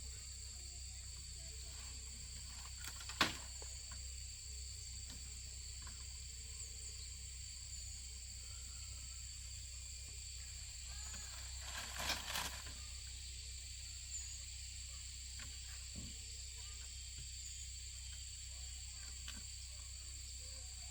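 Steady high-pitched insect chorus with faint chirps, broken by a single sharp knock about three seconds in and a short run of clicks and knocks around twelve seconds.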